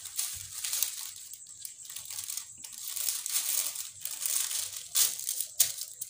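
Thin plastic-bag sheeting crinkling and rustling as it is held and trimmed with scissors. There are a couple of sharp clicks about five seconds in.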